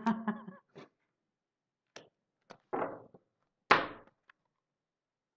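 Oracle cards being handled on a cloth-covered table: a few light clicks and a short rustle as a card is drawn from the deck and laid down, then a sharp thunk about three and a half seconds in as cards meet the table.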